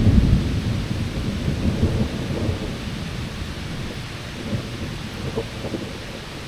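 Rolling thunder rumbling low, loudest at the start and slowly dying away, over the hiss of rain.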